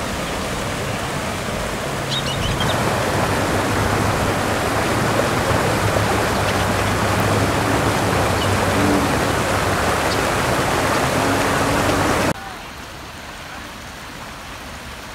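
Muddy flash-flood water rushing across pavement and churning over curbs, a steady rushing noise. It grows louder about two and a half seconds in, then drops suddenly to a quieter wash of water a few seconds before the end.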